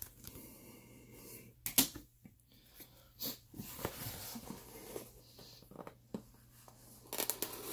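Quiet handling sounds: a few short clicks and rustles as a trading card in a plastic sleeve and holder is handled and set aside, the loudest click a little under two seconds in, with breathing close to the microphone.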